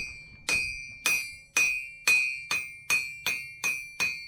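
Blacksmith's hammer striking a hot iron nail set in a nail header, forging the nail's head. About eleven evenly paced blows, two to three a second, each with a bright metallic ring that fades before the next.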